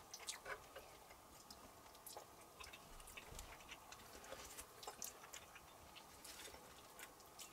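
Faint, scattered clicks of forks against a frying pan and a steel bowl, with quiet chewing, during a meal of fried grayling.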